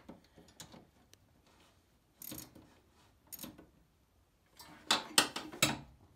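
Hand tools clicking and scraping on the metal battery terminals of a John Deere LA125 lawn tractor as the terminal bolts are tightened. A few light ticks come first, then a cluster of louder sharp clicks and clatters near the end.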